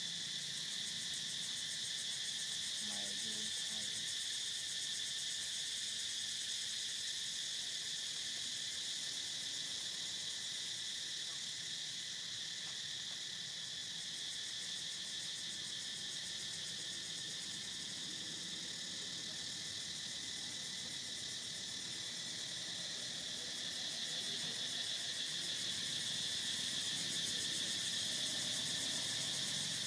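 Steady chorus of insects, a continuous high-pitched drone that holds without a break.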